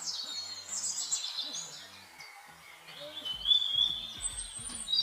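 Birds chirping: quick falling chirps in the first second or so, then a longer whistled note about three and a half seconds in, over a faint low rumble that swells at the same time.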